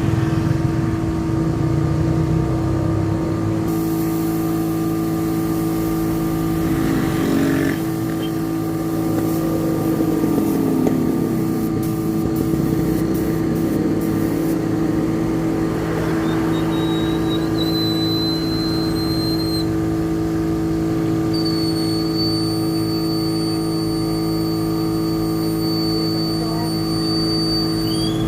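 A motor running with a steady, unchanging hum made of several constant tones. A sweeping sound falls and then rises in pitch around ten seconds in, and a thin high whistle joins after about seventeen seconds.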